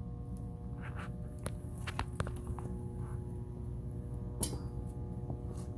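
Scattered footsteps and light clicks over a steady room hum, the sharpest click about four and a half seconds in.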